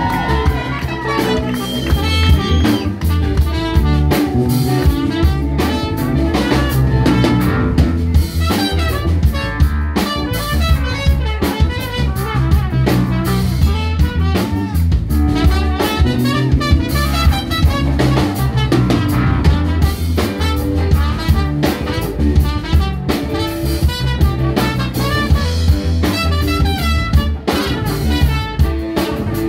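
Live blues-rock band playing loud and steady: drum kit and bass under electric guitar and a horn section with saxophone.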